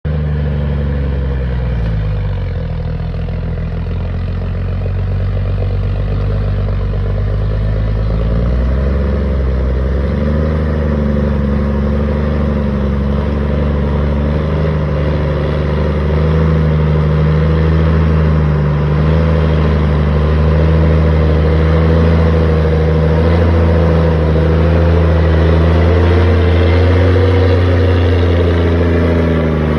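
Kenworth logging truck's diesel engine climbing a hill. The engine pitch drops about two seconds in and climbs again around nine to ten seconds in, then holds steady and grows a little louder from about sixteen seconds.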